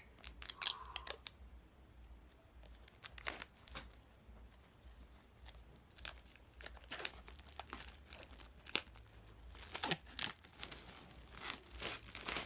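Paper packaging on a camera box being torn open and crinkled by hand, in a string of irregular crackles and rips.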